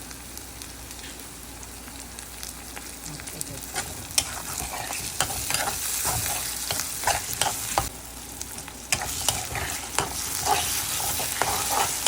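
Chopped tomato, onion, garlic and ginger paste sizzling as they fry in hot oil, with a spatula stirring and scraping the pan in frequent sharp clicks. The sizzle grows louder about four seconds in.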